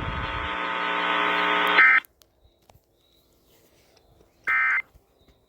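A steady radio buzz stops abruptly about two seconds in. Near the end comes a short, loud burst of warbling data tones: the first of the three end-of-message (EOM) data bursts that close an Emergency Alert System broadcast.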